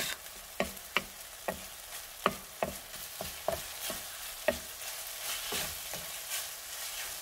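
Rice and diced beef stir-frying in a pan over high heat: a steady sizzle, with irregular taps and scrapes of a wooden spatula against the pan as the rice is tossed.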